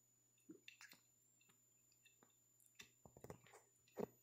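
Near silence broken by a few faint, short clicks, a small cluster about three seconds in and a slightly louder one near the end.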